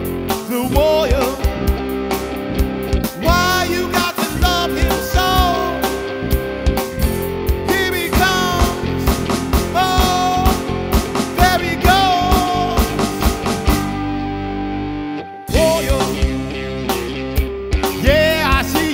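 Rock music with guitar and drums and a wavering lead melody, dropping out briefly about fifteen seconds in.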